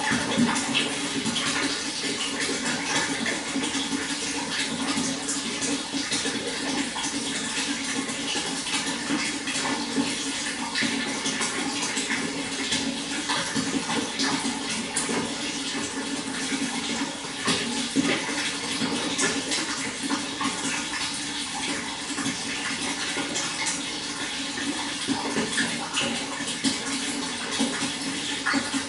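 Running water flowing steadily, with a dense patter of small splashes.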